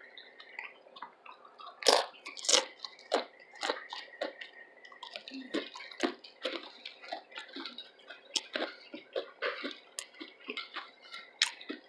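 A person chewing and crunching chips with coleslaw, with irregular wet, crackly crunches, the loudest a few about two to three seconds in.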